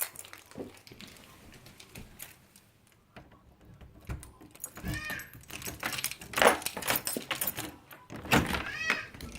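A domestic cat meowing a few times, with a cluster of knocks and clatter between the calls.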